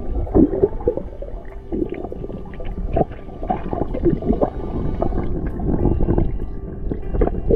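Swimming-pool water heard from underwater: muffled churning and gurgling of swirling water and bubbles as an underwater vortex is spun, with irregular surges.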